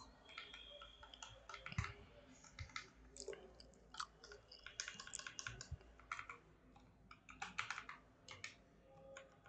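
Faint typing on a computer keyboard: irregular runs of soft keystroke clicks.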